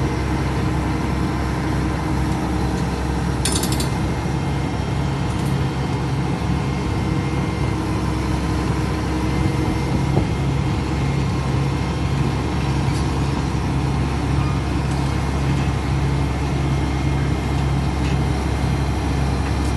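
Large excavator's diesel engine running steadily at a low, even drone, with a short metallic clatter about three and a half seconds in.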